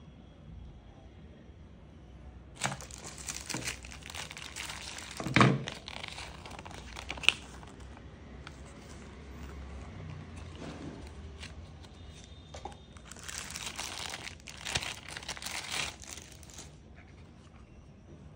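Plastic wrapping and a folded paper instruction leaflet crinkling and rustling as they are handled, in two spells, with a dull thump about five seconds in and a sharp click shortly after.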